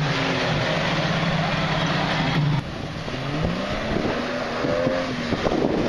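Jeep Cherokee XJ's 4.0 inline-six revving as it churns through mud, its pitch rising and falling with the throttle. About two and a half seconds in, the sound cuts to a more distant engine revving up as the Jeep pushes through deep, muddy water.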